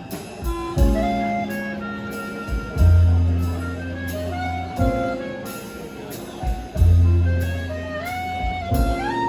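Orchestra playing: sustained chords and melody lines over strong low held notes that come in about three seconds in and again about seven seconds in.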